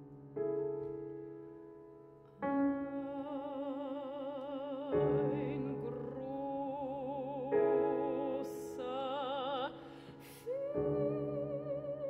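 Soprano singing long notes with a wide vibrato over sustained piano chords, in a contemporary classical art song for soprano and piano. The piano strikes a new chord every two to three seconds, and the voice enters about two and a half seconds in.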